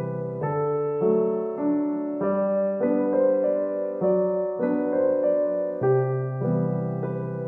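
Background music: a slow keyboard tune, with a new note or chord about every half second over held bass notes.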